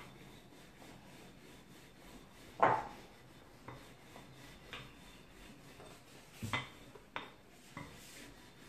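Steel rolling pin with wooden handles rolling out thin dough on a countertop: a soft steady rub, with several sharp knocks of the pin on the counter, the loudest about two and a half seconds in.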